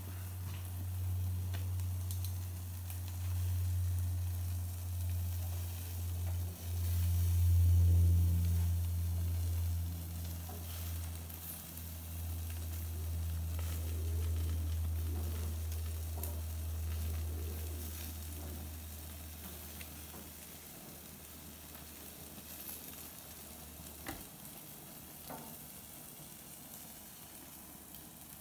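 Salmon steaks sizzling on a gas grill, with a few sharp clicks as metal tongs turn and lift the pieces. A steady low hum underneath is the loudest sound and stops about three-quarters of the way through.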